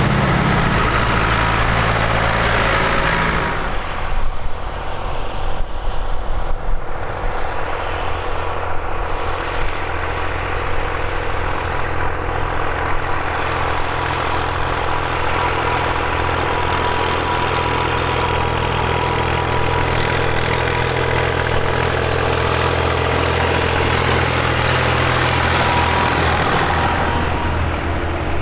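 Tractor engines running: a blue Ford tractor passes close by at the start, its engine loud for the first four seconds before dropping away. A steady engine drone follows as more tractors come up the road.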